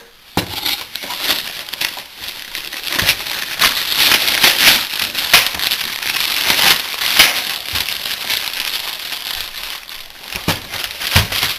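Plastic and foam packaging wrap crinkling and rustling as it is handled and pulled off a Blu-ray player, with many short crackles and a couple of low knocks near the end.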